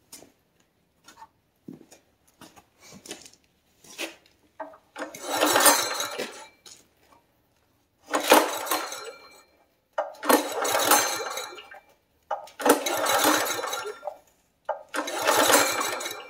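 Recoil starter of a Honda GX160 engine pulled five times. Each pull is a rattling whirr of about a second and a half as the engine spins over freely with its spark plug out for a spark check. A few light clicks come before the first pull.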